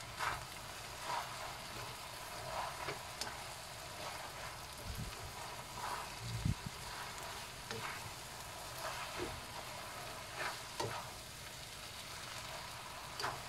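Yellow egg noodles sizzling in a wok as they are stir-fried, with a spatula scraping and knocking through them at irregular moments and a low thump about six and a half seconds in.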